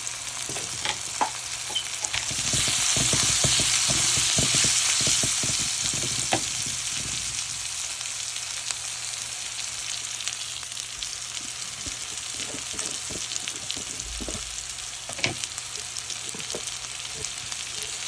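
Shallots and spices sizzling in hot oil in a pan while a spoon stirs and scrapes them. The sizzle swells louder for a few seconds after about two seconds in, with a quick run of stirring clicks, then settles to a steady sizzle with a single sharp tap later on.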